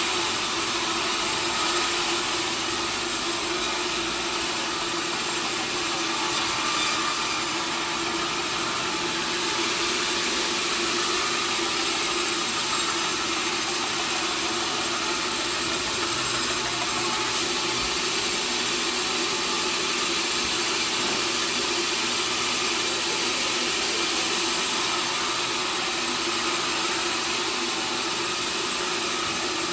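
Sawmill machinery running steadily: a constant mechanical hum under a hiss, with no break or change.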